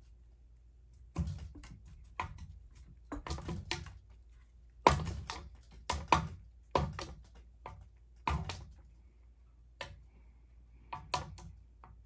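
A cat's paw knocking against spinning ceiling fan blades as it swats at them: about a dozen irregular sharp slaps and knocks, some in quick pairs, over a low steady hum.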